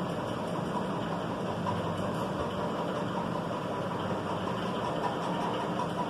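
A steady mechanical hum, like a motor running, with a faint held tone and no sudden sounds.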